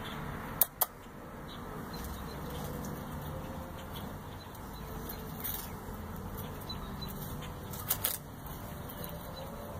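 Steady outdoor background noise with a few sharp clicks: two under a second in and two more near the end.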